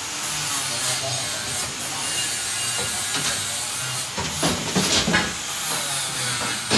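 Steady hissing machine noise with a low hum, and a few knocks and clatters from about four seconds in.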